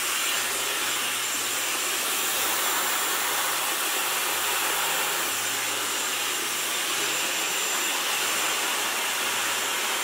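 Dyson Supersonic hair dryer running steadily, a loud even rush of air with a thin, high steady whine above it, as it blows a section of hair dry over a round brush.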